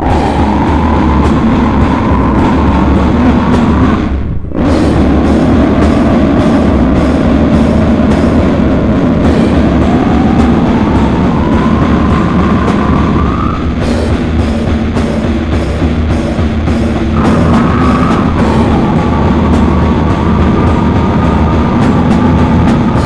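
Heavy, distorted slam and sludge metal with drums: a dense low wall of sound with a high wavering tone sliding up and down above it, breaking off for a moment about four and a half seconds in.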